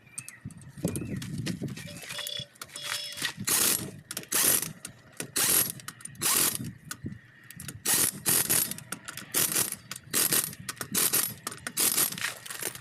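Ratchet clicking in repeated short strokes, one or two a second, starting about three seconds in.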